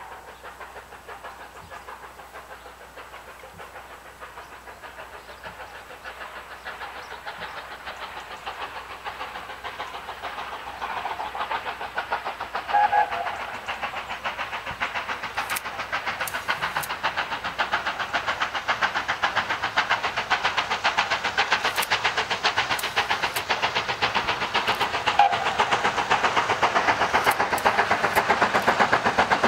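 Steam locomotive approaching, its rapid exhaust beats growing steadily louder as it nears. A short whistle note sounds about halfway through.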